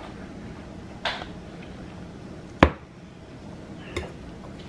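Kitchen knife cutting through soft, sticky steamed cassava cake in an aluminium baking tray: a short scraping stroke about a second in, a single sharp knock of the blade about two and a half seconds in, and a lighter tap near the end.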